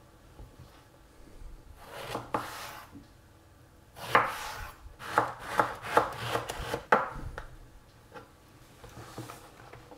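Chef's knife chopping an aubergine into large cubes on a bamboo cutting board: a string of sharp cuts, thickest from about four to seven seconds in.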